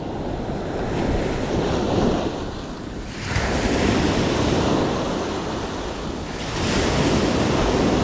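Sea waves washing onto the shore, with wind buffeting the microphone. The surf swells in surges, one about three seconds in and another about six and a half seconds in.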